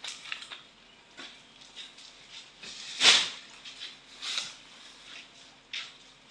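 Rustling and scuffing as workers move through tall grass and handle cement sacks on a truck bed. A louder rush of noise comes about three seconds in, and smaller ones follow.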